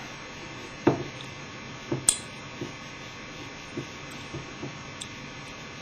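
Scattered small clicks and knocks of a hand tool working a screw out of a Smart Parts Ion paintball marker, about eight light taps with a sharper click just after two seconds in, over a faint steady hum.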